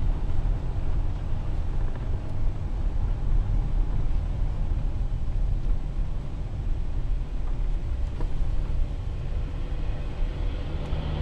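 Steady road and engine noise from inside a moving car's cabin on a highway, mostly a deep rumble, swelling near the end as an oncoming vehicle passes.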